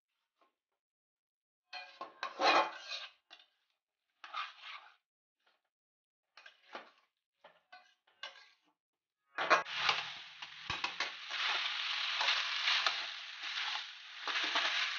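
Metal spatula scraping and turning banana flower and potato curry in a metal kadai: a few short bursts of scraping, then about nine seconds in a steady stretch of stirring with the mixture sizzling in the hot pan.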